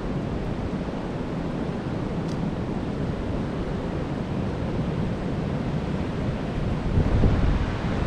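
Wind buffeting the microphone: a steady low rumbling noise that gusts louder about seven seconds in.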